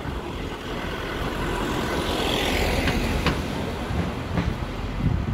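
A motor vehicle driving past on the street, its tyre and engine noise growing louder to a peak about halfway through and then easing off, with a few faint clicks.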